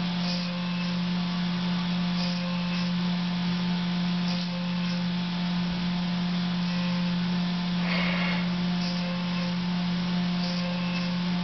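Fadal CNC milling machine running with a steady hum while a small coated cutter machines a humbucker keeper bar under coolant spray, with a brief higher-pitched cutting noise about eight seconds in.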